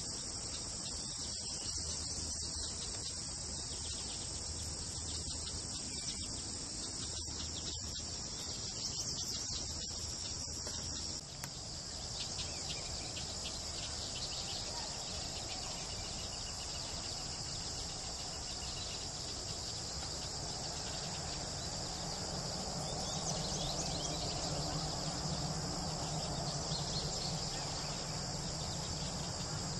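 Steady high-pitched chorus of insects. After a brief dip about a third of the way in, a low background hum grows louder beneath it.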